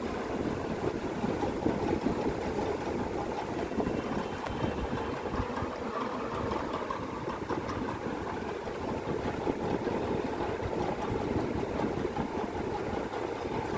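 A steady mechanical rumble, like a running engine or machine, holding at an even level throughout.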